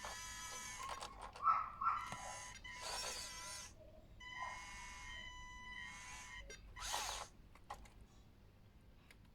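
Radio-controlled excavator model's small electric motors and gearboxes whirring in short bursts, one after another, over a steady high electronic whine, with a few sharp clicks between them.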